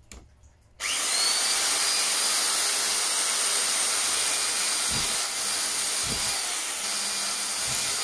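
Handheld power drill spinning up about a second in and then running steadily with a high whine, boring out marked bolt holes in a 1/14 scale RC truck chassis for the fender brackets, with a few short low knocks as it works.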